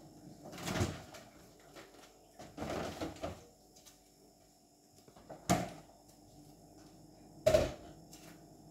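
Kitchen cupboard doors and things being put away during tidying up: two short scuffling noises, then two sharp knocks of a cupboard door shutting, the second the loudest, near the end.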